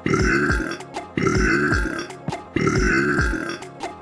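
A man's loud belches, one after another about every one and a half seconds, each with much the same shape.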